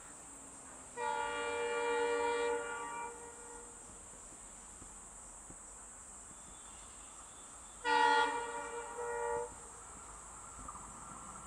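Indian Railways locomotive air horn sounding two long blasts. The first comes about a second in and lasts some two and a half seconds; the second comes near eight seconds in, is shorter, and breaks briefly in the middle.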